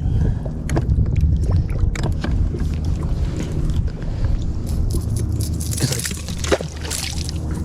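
Hooked fish splashing and thrashing in the water beside a kayak while it is being played out. The splashing is heaviest about five to seven seconds in, over a steady low rumble.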